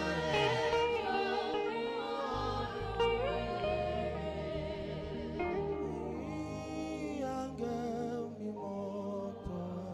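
Saxophone playing a slow, gliding worship melody with vibrato over sustained low accompaniment.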